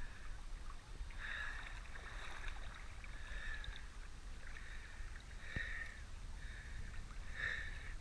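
River water lapping and gurgling against a camera at the waterline, in short splashy patches every second or two over a low steady rumble.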